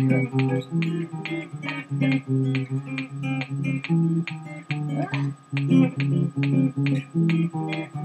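Electric guitar played in a steady riff of picked low notes, about four notes a second, with a short sliding note about five seconds in.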